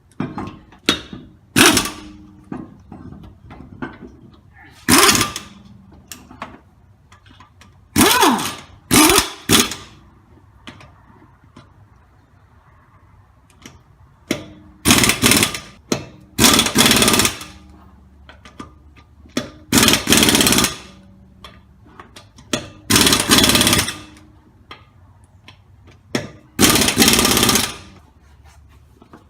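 Impact wrench hammering in a series of short bursts, some in quick pairs and a few lasting about a second, as lug nuts are driven tight on a wheel.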